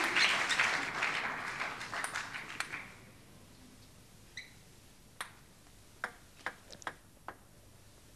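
Crowd applause dying away over the first three seconds. Then a celluloid table tennis ball is bounced a few times as the server gets ready, giving isolated sharp pinging clicks.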